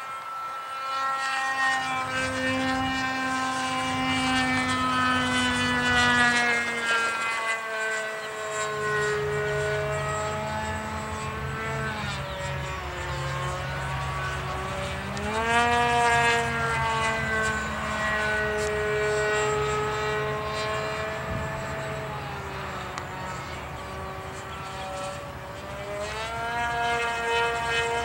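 Radio-controlled model airplane flying overhead, its engine and propeller running steadily. The pitch slowly sinks, then rises quickly about halfway through and again near the end.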